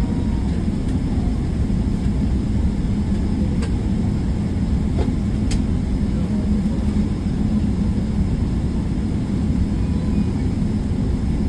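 Jet airliner cabin noise: a steady low rumble of engines and airflow heard from inside the passenger cabin, with two faint ticks near the middle.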